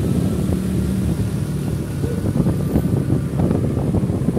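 A motor vehicle's engine running steadily under heavy wind rumble on the microphone.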